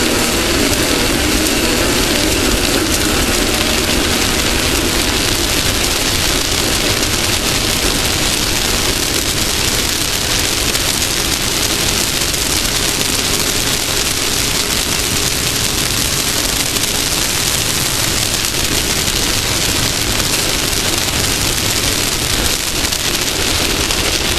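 Off-road race car running at speed on dirt, heard from on board: a steady engine drone buried in a loud, even rush of wind and tyre-and-dirt noise.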